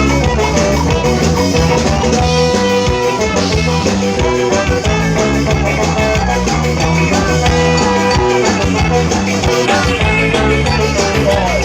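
Ska band playing live, with drum kit, bass and guitar over a steady upbeat rhythm.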